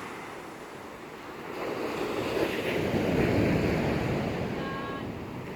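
Rough sea surf: a wave surges and breaks, swelling about two seconds in and easing off near the end, with strong wind blowing across the microphone.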